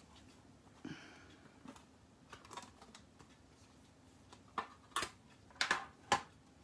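Small hinged metal tin being opened and handled, giving a handful of separate sharp clicks and taps as the lid and its contents are moved. The loudest clicks come in the last couple of seconds.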